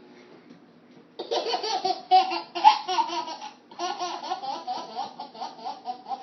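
Baby laughing in a long run of quick repeated giggles. It starts about a second in and has a short break in the middle.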